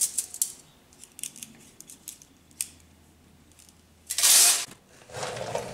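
Light metal clicks and taps of hand tools and brake line being handled, with a louder half-second clatter about four seconds in.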